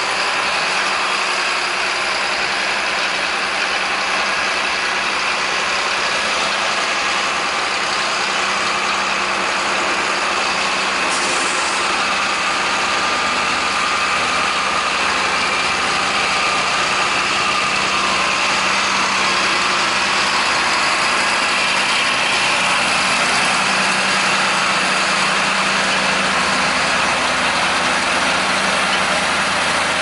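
Heavy diesel engines of John Deere tractors and a semi truck running steadily as the tractors push and pack corn silage on the pile.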